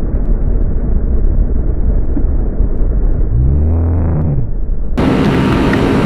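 Ducati V4 motorcycle engine running on the move, heard muffled at first, with a brief rise and fall in pitch shortly before an abrupt change about five seconds in, after which the sound opens up with wind and road noise.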